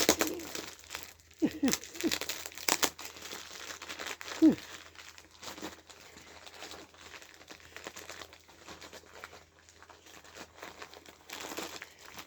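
Crinkling and rustling of a delivery package's packaging being handled and opened, most busy in the first few seconds. A few short falling squeaks come through, the sharpest and loudest about four and a half seconds in.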